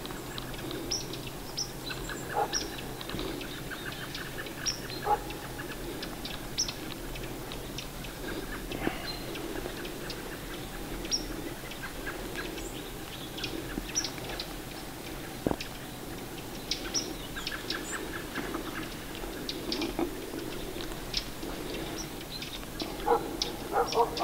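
Small birds chirping now and then, short high chirps scattered over a steady low background of outdoor ambience, with a brief cluster of louder, lower sounds near the end.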